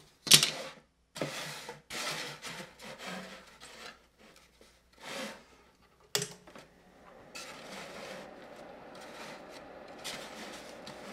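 A foam insulation-board fuselage section being handled on a hot-wire cutting table: a sharp knock near the start and several short scrapes, then from about halfway a steady faint rubbing as the foam slides across the table board.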